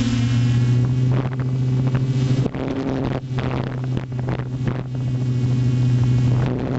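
Multirotor drone's electric motors and propellers humming steadily in a hover, heard from its own onboard camera, with a rushing hiss that breaks off several times between about one and five seconds in.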